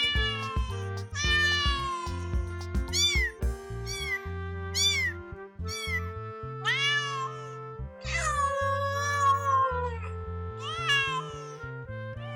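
Kittens meowing, about nine separate high meows that rise and fall in pitch, the longest drawn out about eight seconds in, over background music with steady low chords.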